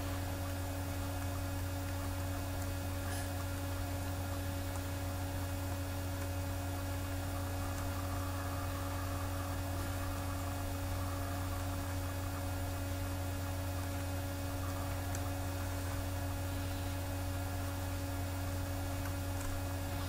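Steady electrical mains hum: a constant low drone with a couple of fainter higher steady tones above it, over a light hiss.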